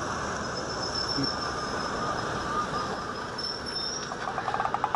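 Steady engine and road noise inside a moving bus, with a faint high-pitched whine through the middle.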